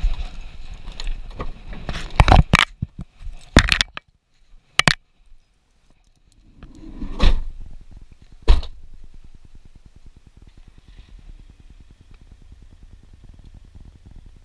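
Handling noise from a GoPro action camera being moved and set down: a quick run of knocks and scrapes, a short near-silent gap, then two louder thuds about seven and eight and a half seconds in, followed by a low steady hum.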